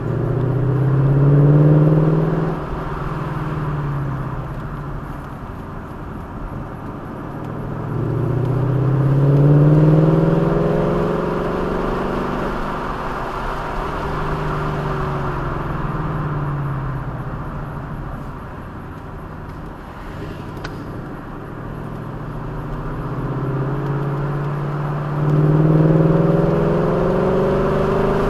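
A car engine rising in pitch and volume as it accelerates, then easing off, three times: about a second in, around nine seconds in and near the end. Steady road and wind noise runs underneath.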